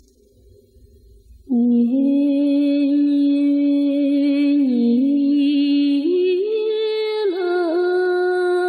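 Background music: after a quiet first second and a half, long held notes come in loudly, stepping up in pitch about six seconds in and wavering briefly near the end.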